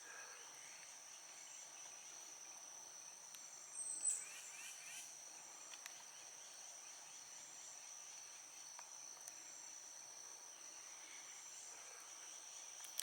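Faint, steady, high-pitched insect chorus, with a short louder sound about four seconds in.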